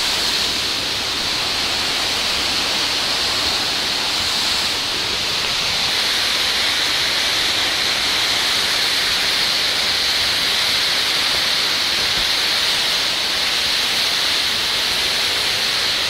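Waterfall: falling water rushing steadily, with an even hiss.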